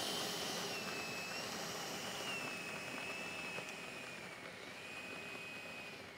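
The 80 mm electric ducted fan of an E-flite Havoc Xe RC jet running: a steady high whine over a rush of air, its pitch wavering and sinking slightly as it slowly gets quieter.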